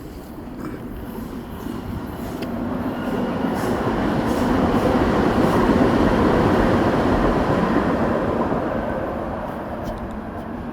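A heavy vehicle passing close by: a rumbling roar builds over a few seconds, peaks in the middle, then fades as it moves away.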